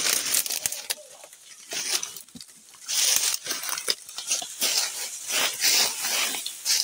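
Dry leaves, grass and twigs rustling and crackling in irregular bursts as someone pushes on foot through dense undergrowth, louder from about three seconds in.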